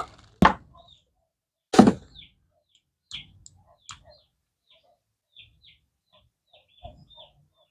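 Two sharp knocks, about half a second and two seconds in, from handling the unpacked welding machine and its MIG torch cable, then faint, scattered short bird chirps.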